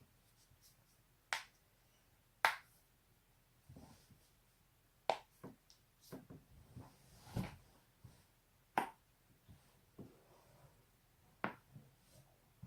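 Neck and spine joints cracking: about six sharp pops spaced irregularly a second or more apart, with softer movement sounds between.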